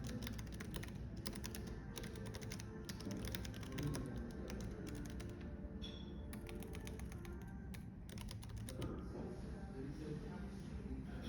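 Computer keyboard typing in quick runs of keystrokes, with short pauses, stopping about three-quarters of the way through, over café background with music.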